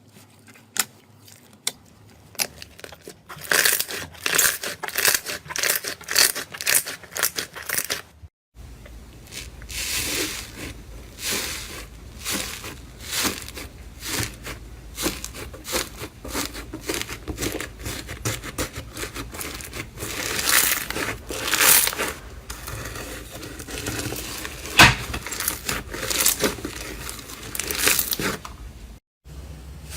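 Slime being squeezed, poked and stretched by hand, giving dense, irregular crackling and popping clicks. The sound breaks off briefly about eight seconds in and again near the end, where one clip gives way to the next.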